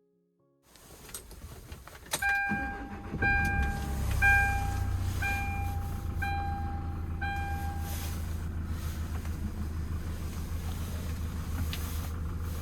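Hyundai Starex van's diesel engine cranking and catching about two seconds in, then idling steadily with a low rumble. Over it a dashboard warning chime sounds about once a second, six times.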